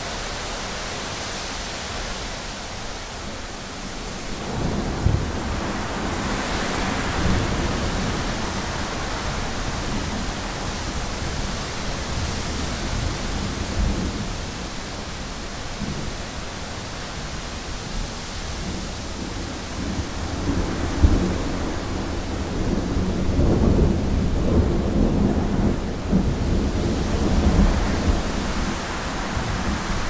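Thunderstorm: steady rain hiss with rolling thunder, a first deep rumble about four seconds in and a longer, louder roll from about twenty seconds in that opens with a sharp crack.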